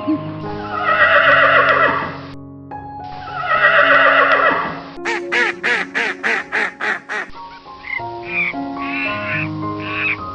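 Animal calls over background music: two long calls, then a quick run of about nine short calls at about four a second, then a few shorter calls.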